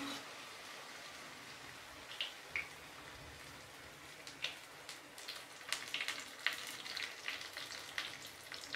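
Ghevar batter of maida foaming and frying in hot desi ghee in a small kadhai. It makes a faint steady sizzle with scattered sharp crackles and pops, which come more often in the second half.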